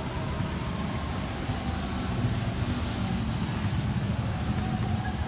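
Steady background of street traffic: a continuous low rumble of passing motorbikes and cars.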